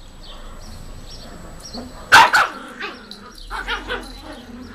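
Two Yorkshire terrier puppies playing tug-of-war with a rope toy: one barks sharply twice about two seconds in, the loudest sound, with quieter yaps a little later.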